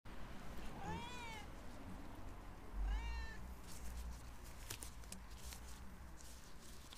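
Tabby cat meowing twice, once about a second in and again near three seconds, each call rising then falling in pitch. Light rustling and clicks follow in the second half.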